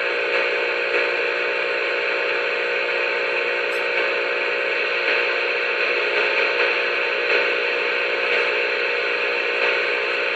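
A steady whistle-like tone over even hiss, held unchanged for about ten seconds and heard through a two-way radio's speaker: a continuous tone transmission on the channel.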